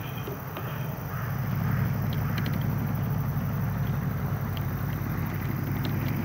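Steady low rumble of a distant vehicle, swelling slightly after a second or so, with a few faint ticks over it.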